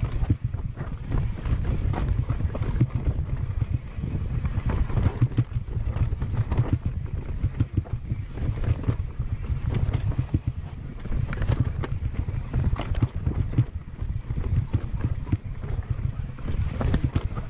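Mountain bike riding fast down a rough dirt trail: continual rattling and knocking of the chain, suspension and frame as the tyres run over roots and bumps, over a steady low rumble of wind on the microphone.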